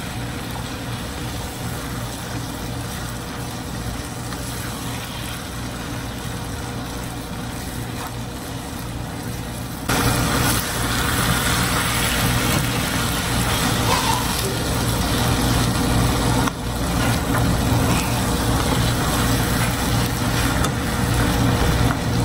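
Steady low hum and hiss of a skillet of rice, ground meat and tomato sauce cooking on a gas burner while it is stirred, getting louder about ten seconds in.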